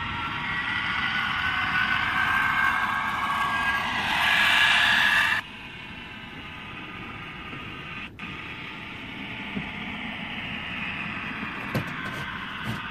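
OO gauge model Class 66 diesel locomotives running on track: a whine of several pitches over a low rumble, growing louder as the first loco nears. About five seconds in it drops off suddenly, and a softer whine builds again as a second loco approaches.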